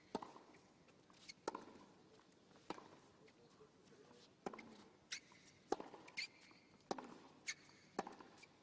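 Tennis rally on a hard court: a series of sharp pops from the ball being struck by rackets and bouncing, roughly one every second, with a few short squeaks from the players' shoes. Faint.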